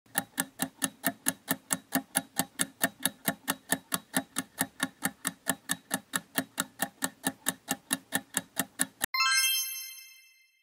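Quiz countdown-timer sound effect: clock-like ticking at about four ticks a second for around nine seconds, then a bright bell chime that rings out as the time runs out and the answer is revealed.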